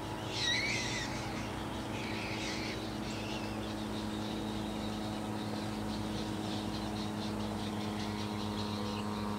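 Short, high, wavering bird calls, the loudest about half a second in and fainter ones around two and three seconds, over a steady low mechanical drone of several held tones.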